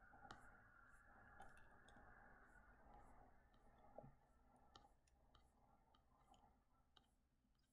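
Near silence, with faint irregular clicks from a computer mouse as the page is scrolled.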